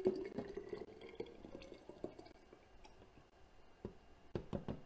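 Thick, pulpy tomato sauce poured from a blender jar into a glass mason jar, faint, with small drips and clicks. A few sharp taps come near the end.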